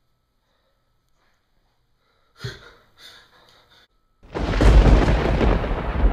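Quiet, then two short sounds, then about four seconds in a sudden loud rumbling blast of noise, heavy in the bass, that keeps going.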